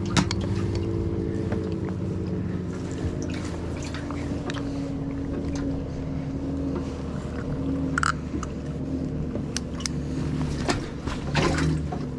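Steady hum of a fishing boat's electric motor, a few steady tones wavering slightly in pitch, with sharp clicks and knocks of a crappie being handled and put into the livewell.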